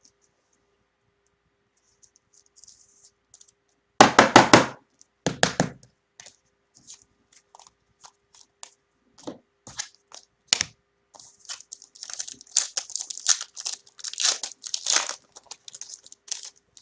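Trading card pack wrapper torn open and crinkled, with the cards handled: a cluster of sharp cracks about four seconds in, then scattered clicks and rustling that grow busier toward the end.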